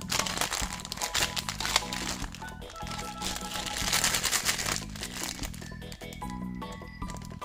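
Plastic candy wrappers crinkling and crackling as sweets are unwrapped, over background music.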